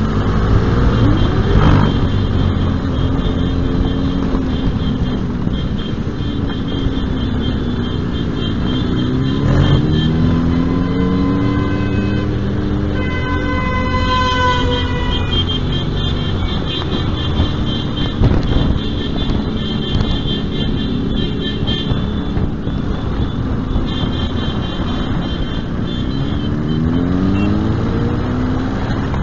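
Motorcycle engine running on the move, its pitch rising and falling repeatedly with throttle and gear changes. About halfway through, a horn sounds for roughly two seconds.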